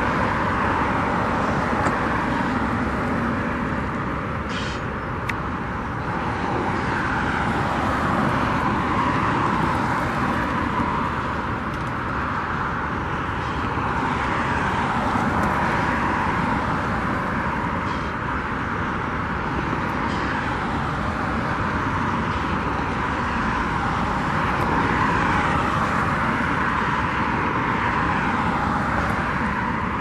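Steady road-traffic noise, trucks and cars passing, with a few faint clicks.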